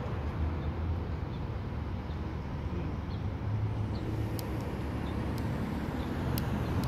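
City street background noise: a steady low rumble of traffic, with a few faint ticks in the second half.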